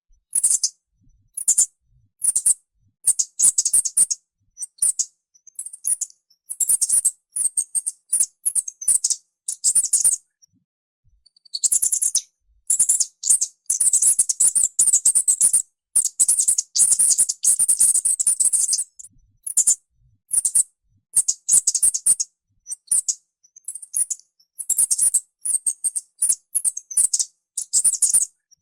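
Mouse squeaking: rapid runs of high-pitched squeaks in bouts of a second or two, separated by short silences.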